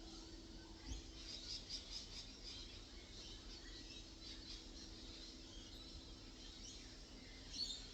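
Singing bowl ringing with a steady, sustained tone; about a second in, a soft strike sets a second, lower tone going, and both ring on together. Faint high chirping runs over them.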